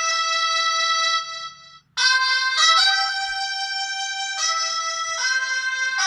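Polyphonic ringtone from a Pirelli DP-L10 phone's Winbond W56940 40-voice sound chip: a synthesized melody of held notes. It fades out a little over a second in and, after a short silence, a melody starts again about two seconds in.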